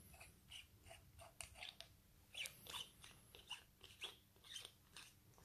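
Faint, irregular little clicks and scrapes as the threaded bottom button of a Deathwish Modz Barebones mechanical mod tube is twisted out by hand, metal threads turning.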